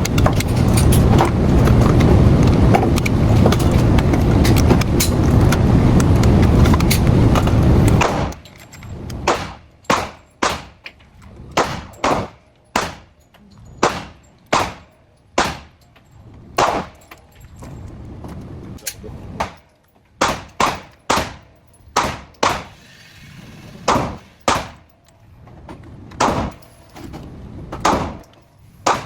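Loud steady rumbling noise that cuts off about eight seconds in, then a long run of irregularly spaced gunshots, each a sharp crack with a short echo, as at a shooting range.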